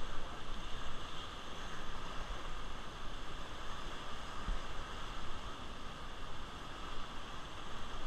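Steady rush of fast, choppy river water around an inflatable raft, with some low rumble from wind on the microphone.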